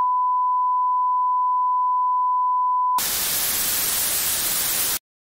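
Steady bars-and-tone test tone, a single unwavering beep, for about three seconds, then a harsh TV-static hiss for about two seconds that cuts off suddenly.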